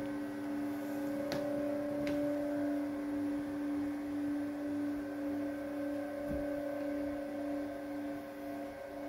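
Singing bowls ringing with two steady, sustained tones, one low and one higher, that hold without fading. Two light taps come about a second and a half and two seconds in, and a soft low thump past the middle.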